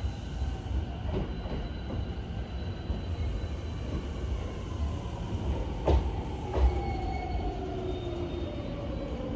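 Electric commuter trains running through a station on the Sotetsu Line. From about halfway through, the traction motors whine in a tone that slowly falls in pitch as a train slows, over a steady rumble of wheels on rail. Two sharp clunks come about six seconds in.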